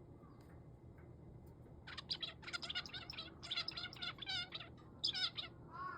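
Male zebra finch vocalizing in a rapid string of short, high calls, starting about two seconds in and lasting about three and a half seconds.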